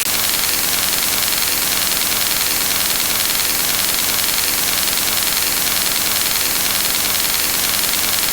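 Loud, steady static hiss like white noise, with a faint high whine held through it; it cuts in abruptly at the start.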